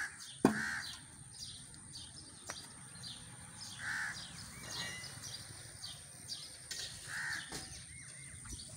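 A crow cawing three times, a few seconds apart, over the chirping of small birds. A single sharp knock sounds about half a second in.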